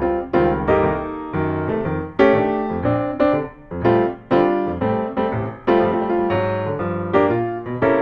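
Background music: a piano piece with a steady pulse of notes and chords.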